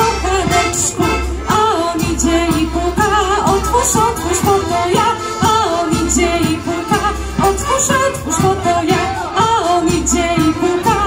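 Polish folk band from Podlasie playing a lively dance tune with voices singing, over a steady beat.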